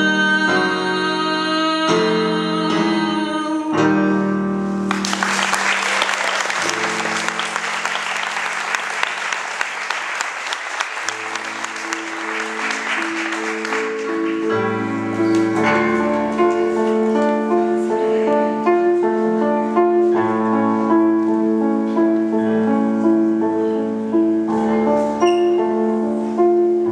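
A singer holds a final note over piano chords, which end about four seconds in. Audience applause follows for about nine seconds. Then a solo piano plays an introduction of steady repeated chords.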